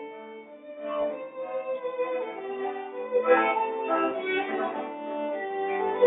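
Background music: a slow melody on bowed string instruments, with long held notes layered over one another.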